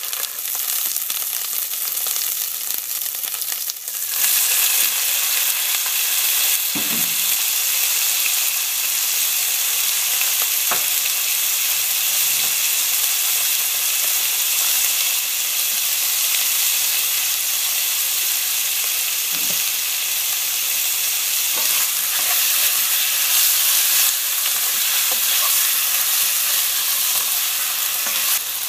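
Onions, green chillies and chicken pieces sizzling in hot oil in a non-stick wok, a steady sizzle that gets louder about four seconds in. A few faint knocks sound over it.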